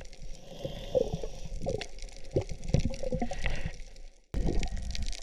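Water gurgling and sloshing with many irregular pops and clicks. The sound breaks off for a moment about four seconds in, then starts again.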